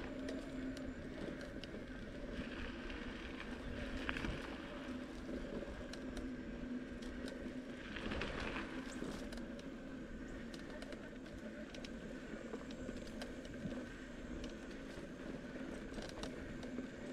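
Bicycle rolling along a sandy gravel trail, heard from a camera mounted on the bike: a steady rolling rumble and hum, with scattered small clicks and rattles.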